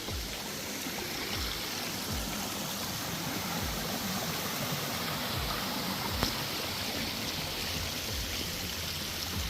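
Steady rush of flowing water from a rainforest creek, with soft low thuds recurring every second or so and a brief click about six seconds in.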